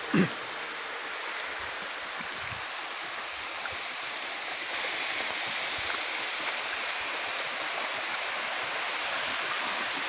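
Steady rushing of a forest waterfall pouring down a rock face into a pool, a little louder through the second half. At the very start a brief, loud sound sweeps downward in pitch.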